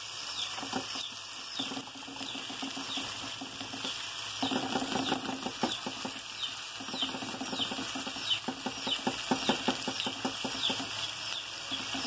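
A knife stirs and scrapes tomato, onion, chile and longaniza in a frying pan, the metal blade clicking against the pan over a steady sizzle. The stirring gets busier about four seconds in. Short high chirps repeat in the background throughout.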